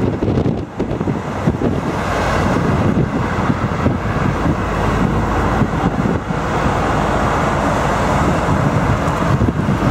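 Wind buffeting the microphone on the open upper deck of a moving tour bus, over the low rumble of the bus and passing road traffic.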